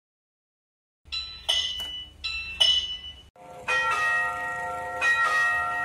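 Gentrix electronic railway block-signal bell (genta) ringing, sending a bell signal between stations. About a second in come a few short bell strikes, then from just under four seconds a longer ringing of several tones held together.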